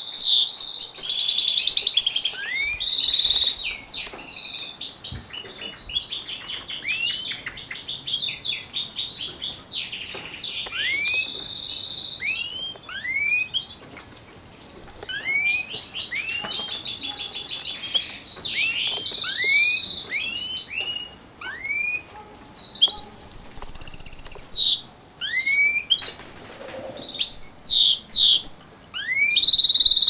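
Caged goldfinch mule (goldfinch × canary hybrid) singing hard: a long run of rapid trills, repeated upward-sweeping notes and bright high twittering, with a couple of brief pauses a little past the two-thirds mark.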